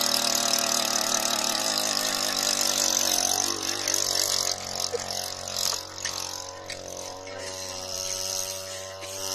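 Small petrol engine of a gas-powered ice auger running at high speed, then dropping to a lower, steadier speed about halfway through.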